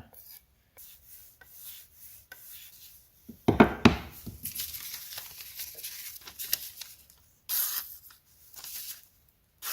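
Chef's knife edge drawn along a strop in a series of short rubbing strokes, extra stropping at the tip to clear snagginess left after sharpening, with one loud thump about three and a half seconds in.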